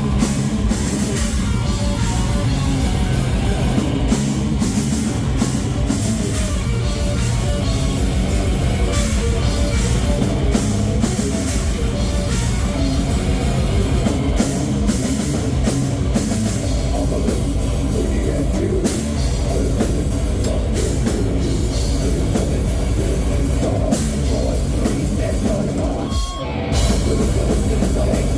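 Heavy metal band playing live with distorted guitars, bass and a drum kit, in an instrumental passage without vocals. There is a short break about 26 seconds in before the full band comes back in.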